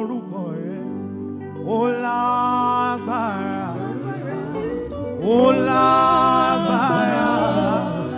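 Gospel singing over steady instrumental backing, with long held sung phrases: one about two seconds in, and a louder one from about five seconds in.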